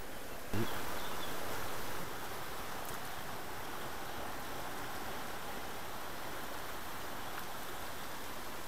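Steady rush of a flowing river, with a short knock about half a second in where the sound briefly gets louder.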